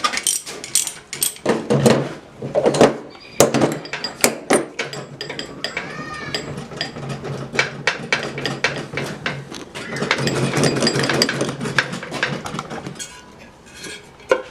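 Hand ratchet wrench clicking in quick runs, mixed with metallic clinks and knocks of tools and bike parts during disassembly.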